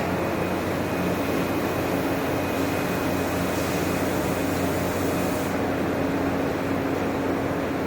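Steady electric blower noise with a low hum under it; a higher hiss in the noise stops about five and a half seconds in.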